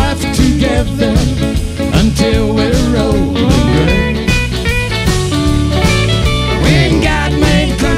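Live country band playing an instrumental stretch: bowed fiddle and electric guitars over drums, with sliding, bending notes.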